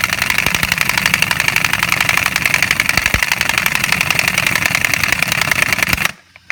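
Harbor Freight Earthquake XT 3/4-inch air impact wrench hammering at full power on a rusted, seized lug nut of a 1946 Chevy truck, a loud rapid rattle of blows that stops abruptly about six seconds in.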